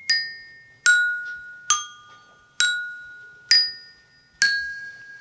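Child's toy xylophone with coloured metal bars struck with a mallet: six single notes about a second apart, each ringing out and fading, the tune stepping down in pitch and then back up.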